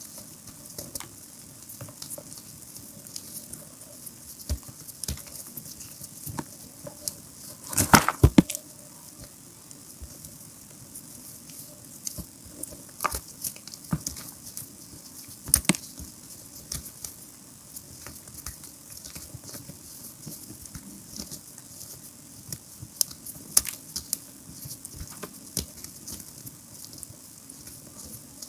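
Hands crushing and crumbling chunks of re-formed gym chalk into loose chalk powder: a continuous soft crunching and patter of falling crumbs, broken by irregular sharp crunches. The loudest is a quick cluster of cracks about eight seconds in.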